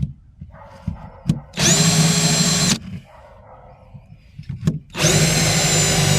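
Power drill running in two bursts, the second a little longer, each spinning up quickly to a steady whine: drilling screw holes through the aluminum for a rod holder mount. Small clicks and knocks come between the bursts.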